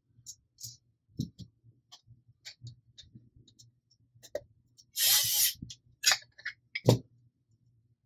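Small clicks and knocks of screws, a screwdriver and plastic blaster parts being handled while the stock is screwed onto the grip, with a short scrape about five seconds in and a sharper knock near the end.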